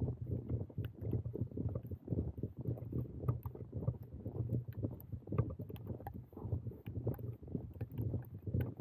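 Storm wind buffeting a small action camera's microphones: an uneven low rumble that swells and drops, with many small irregular ticks and knocks through it.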